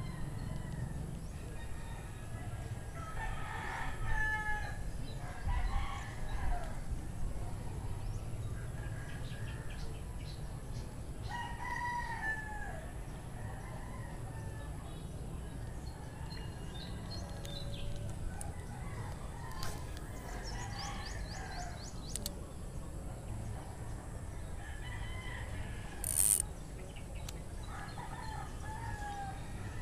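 Roosters crowing repeatedly, several drawn-out crows every few seconds over a steady low background rumble, with one brief sharp click about three quarters of the way through.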